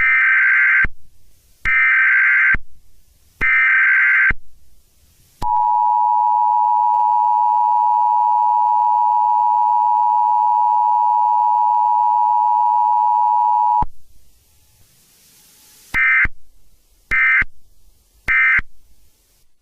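Emergency Alert System tones: three short buzzing data bursts of the header, then the steady two-note attention tone for about eight seconds, then three shorter bursts of the end-of-message code.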